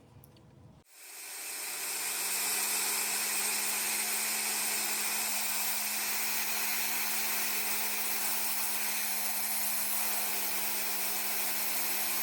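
3D-printed Tesla turbine run on a jet at about 120 psi: the gas comes on about a second in with a loud rushing hiss that builds quickly and then holds steady, with a steady low hum beneath it, as the disc rotor spins at high speed, around 21,000 to 25,000 RPM.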